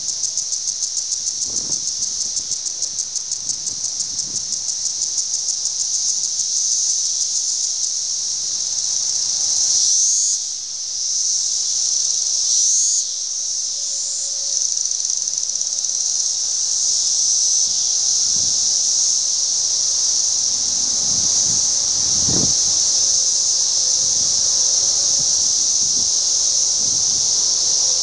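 Loud chorus of Brood X 17-year periodical cicadas, a dense high-pitched whine that pulses rapidly for the first several seconds and then runs steadier. Single calls swell up and fall away about ten seconds in and again around thirteen.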